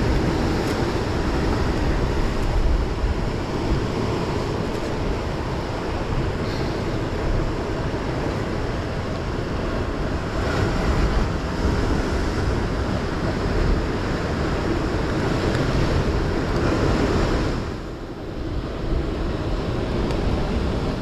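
Ocean surf surging and breaking against rocks, a steady loud wash of water with wind on the microphone; it eases briefly near the end.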